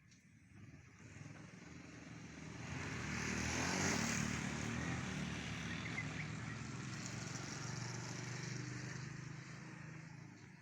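A motor vehicle passes by, its engine and tyre noise growing louder over the first few seconds, then slowly fading away.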